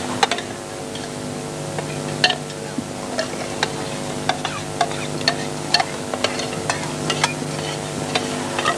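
Irregular sharp clicks and taps, a few each second, over a steady low hum.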